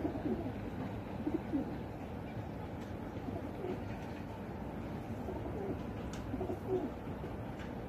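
Feral pigeons (rock doves) cooing: several birds' low coos repeat and overlap.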